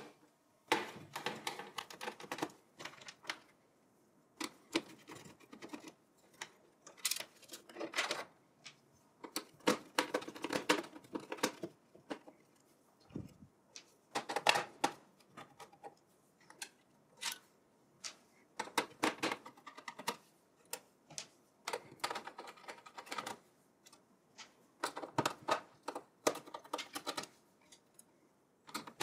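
Screwdriver turning out the motherboard's mounting screws in a steel PC tower case: irregular clusters of small metallic clicks and ticks with short pauses between them.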